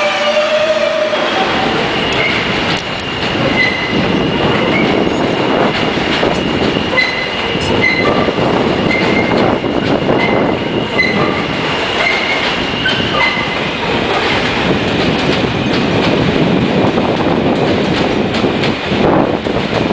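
New York subway train running along an elevated steel structure: a loud, steady rumble with wheels clacking over rail joints, a thin steady wheel squeal through the first half, and short squeals about once a second. At the very start, the last of a falling electric-motor whine from the previous train cuts off.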